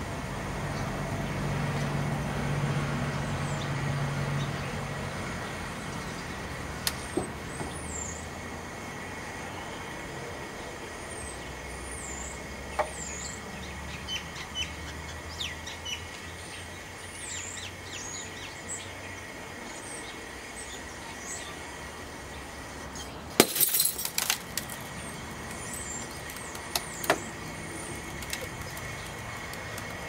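Microwave oven door window cracking under pressure from a water-filled car inner tube swelling inside: a quick burst of several loud, sharp cracks about three quarters of the way through, with a few lone ticks before and after. Small birds chirp now and then.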